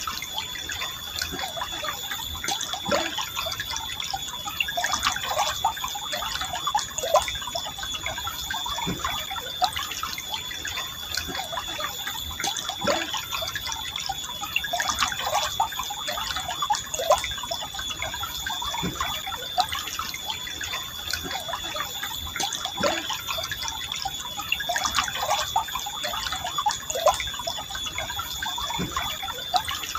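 Forest stream flowing gently over a steady rush, with many small drips and gurgles. A thin high steady tone runs through it.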